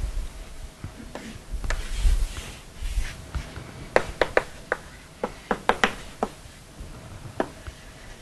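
Chalk on a blackboard while writing, giving a quick irregular run of sharp taps a few seconds in, with a few duller knocks before it.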